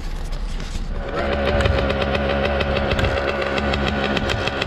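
Yamaha YZ250 two-stroke dirt bike engine running steadily, coming in about a second in.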